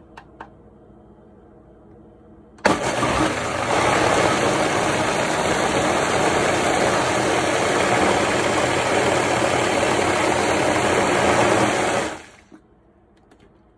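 Countertop blender switching on about three seconds in and running steadily, churning cooked quinoa, eggs and herb paste into a thick batter, then switching off and winding down near the end.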